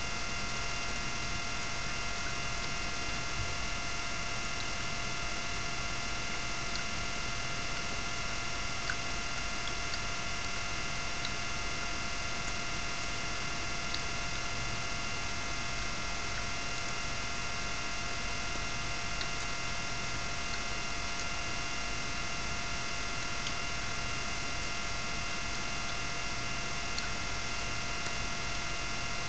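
Steady electrical hum and whine with several high, even tones, unchanging throughout, with a few faint scattered ticks.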